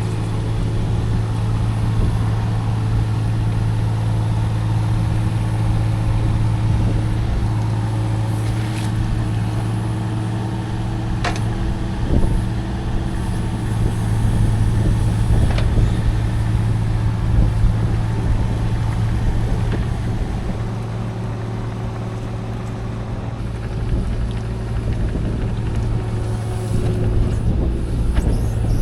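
Mini excavator engine running at a steady speed, with a few sharp knocks partway through.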